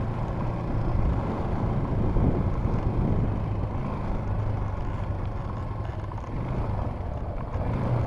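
ATV engine running steadily, with a low, even hum and rough rumble.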